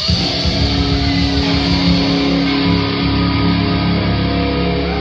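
Live rock band playing the opening of a song on amplified electric guitars and bass, with long held notes over a steady low end.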